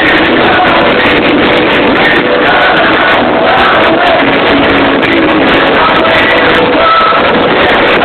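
Loud live rock music with a lead vocal, recorded from the crowd on a phone, dense and cut off in the highs.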